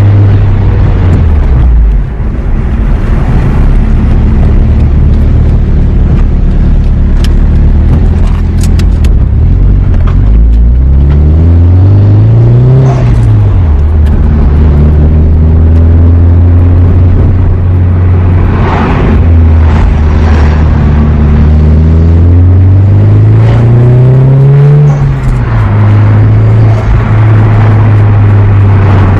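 Nissan S15's turbocharged SR20DET four-cylinder engine heard from inside the car while driving, a steady low drone that twice climbs in pitch under acceleration and then drops back, about ten seconds in and again near twenty-two seconds.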